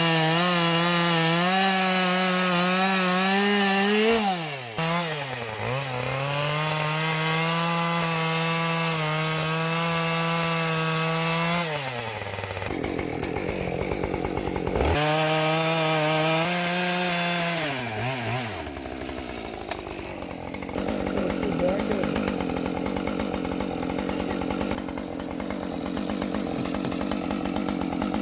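Gasoline chainsaw at high revs cutting into a pine stump, its pitch wavering under load and dipping briefly about four seconds in. It drops off the throttle after about twelve seconds, revs up and cuts again for a few seconds, then falls to a lower, rougher idle for the rest.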